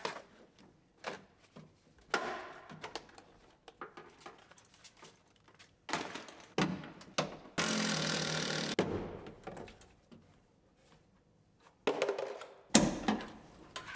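Plastic interior trim panels and wiring in a pickup cab being pried and handled by hand: scattered clicks and thunks with bouts of scraping and rustling, the longest about eight seconds in.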